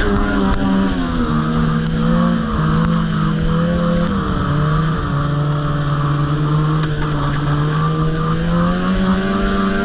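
Snowmobile engine running at trail speed, its pitch holding mostly level with a brief dip about four seconds in and a rise near the end as the throttle is eased and reapplied.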